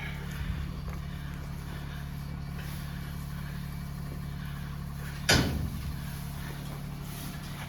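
An engine idling steadily, with one sharp loud knock about five seconds in.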